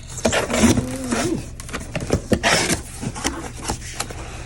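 A cardboard box being opened by hand, with packing tape and cardboard tearing and scraping in two longer bursts, about half a second in and about two and a half seconds in. Scattered clicks and knocks of handled packaging run between them.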